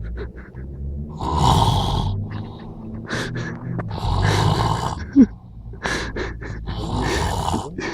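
A man snoring heavily: three long rumbling snores, about one every three seconds, with quieter breathing between them. The snoring sounds like a motorbike.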